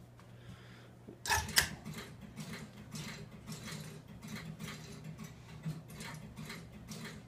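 A sharp double clack about a second in, then a run of relay clicks at a few per second over a low steady hum. This is the CTC machine's code and signal relays picking and dropping as a code goes out to set the searchlight signal to stop.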